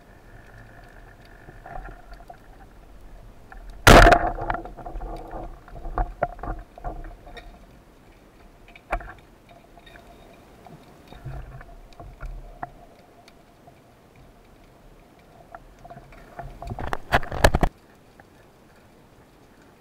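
Band-powered speargun fired underwater about four seconds in: a sharp crack with ringing after it. Scattered clinks and knocks follow, then a quick run of loud knocks near the end as the rubber bands are pulled back and hooked onto the shaft to reload.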